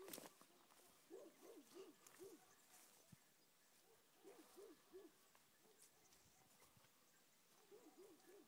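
Beagles baying while running a hare: faint runs of three to five short yelping bays, about a second in, again around four to five seconds, and once more near the end. A sharp click right at the start.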